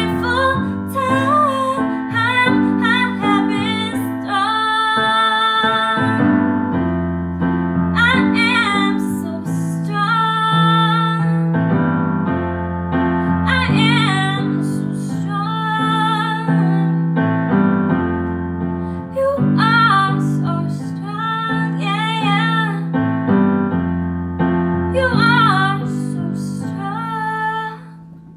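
A woman singing a slow pop ballad with vibrato, accompanying herself on an electronic keyboard set to a piano sound that plays sustained chords.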